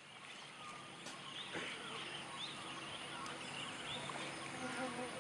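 Quiet wild forest ambience: many short, high bird chirps over a faint, steady insect hum.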